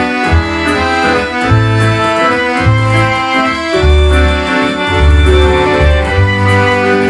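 Ceilidh band playing a waltz: two piano accordions on the tune, backed by keyboard and a drum kit, with deep bass notes about once a second.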